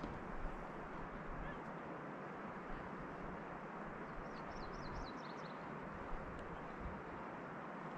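Steady rushing outdoor background noise, with a small bird giving a quick run of high chirps about halfway through.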